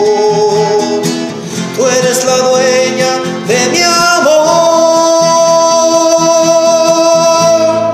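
A man singing with his own strummed acoustic guitar. His voice slides up about halfway through and holds one long high note over the guitar.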